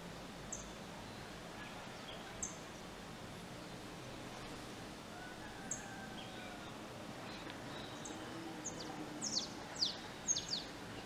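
Small birds calling: single short, high chirps every few seconds, then a quick run of sharp downward-sweeping chirps near the end, over a steady background hiss.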